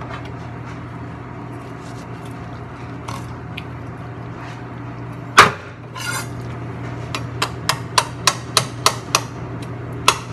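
A chef's knife striking a wooden cutting board in quick, regular chops, about three a second, through the last few seconds, after one louder single knock about halfway through. A steady low hum runs underneath.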